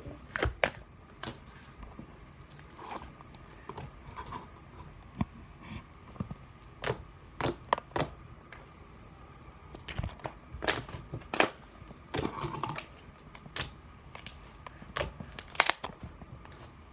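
A large batch of slime being handled, stretched and squeezed, making irregular sharp pops and clicks as air pockets burst.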